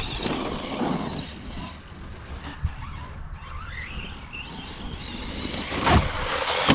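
Brushless electric motor of an Arrma Kraton 4S RC monster truck whining under throttle. It eases off, then rises in pitch again from about three seconds in. Near the end comes a single loud thud as the truck lands a jump nose-first.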